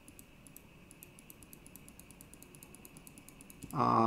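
Faint, even clicking, about nine clicks a second, over a faint steady high whine; a man's voice comes in near the end.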